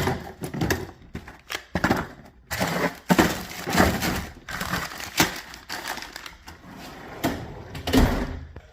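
Metal tools clattering and knocking as they are handled in a steel toolbox, a string of irregular knocks with a louder clank about eight seconds in.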